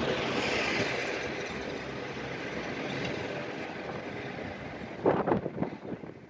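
City street traffic noise: a car passes close by near the start, its rush swelling and fading. About five seconds in there is a short burst of loud thumps.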